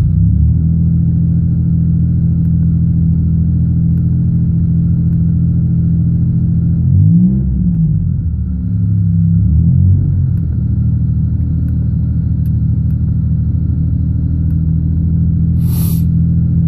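1999 Pontiac Bonneville's 3800 V6 running at idle, revved up and back down briefly about seven seconds in and again, more lightly, about ten seconds in. The owner reports the engine is misfiring and still not running right.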